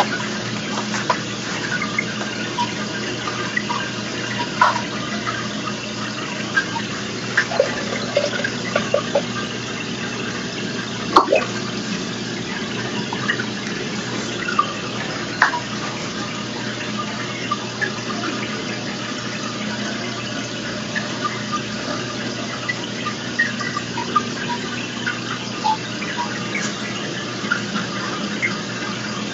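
Steady running and trickling water of an aquarium's filtration, with a constant low pump hum. Short splashes and bubbling blips come and go, with a couple of sharper clicks, as fish strike at food on the surface.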